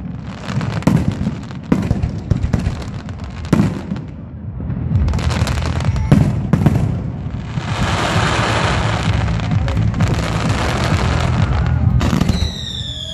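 Fireworks display: repeated sharp bangs of bursting shells. In the second half comes a long stretch of dense crackling, and near the end falling whistles.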